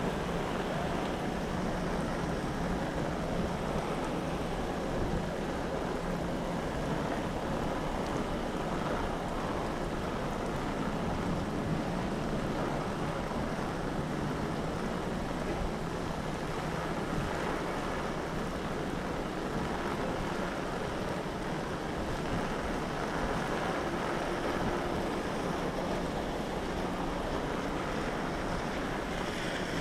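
Heavy rain falling steadily, with strong wind buffeting the microphone as a low rumble.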